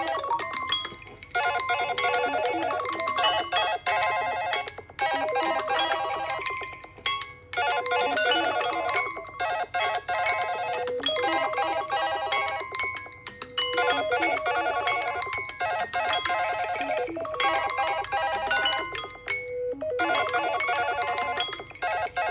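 Smartphone alarm tone: a melody of short, bright notes that loops, repeating about every six seconds with a brief break between repeats.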